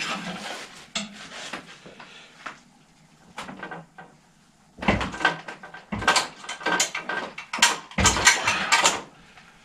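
Metal tools and parts clattering and knocking as they are handled at a workbench. A few scattered knocks come first, then a busy run of clinks and rattles in the second half.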